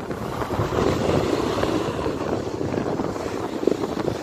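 Wind buffeting the microphone during a slow glide down a ski slope, over a continuous gritty scraping hiss of edges sliding on snow.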